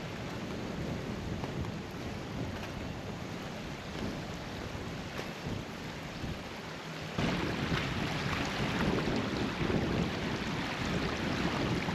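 Wind on the microphone with waves washing on a bay shore: an even rushing noise that grows louder about seven seconds in.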